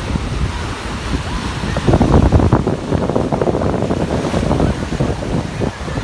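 Sea surf breaking and washing in over shallow water, with strong wind buffeting the microphone in gusts; the buffeting is loudest about two seconds in.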